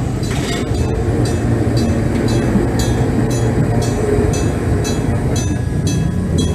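Enoden level crossing's electric-bell approach warning device ringing in a steady rhythm of just under two strokes a second, over the low rumble of a train running past.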